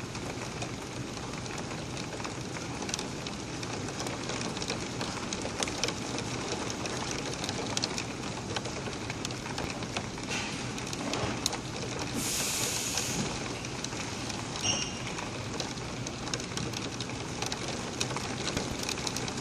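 Steady rain falling, with scattered ticks of drops striking surfaces. A brief high hiss comes about twelve seconds in.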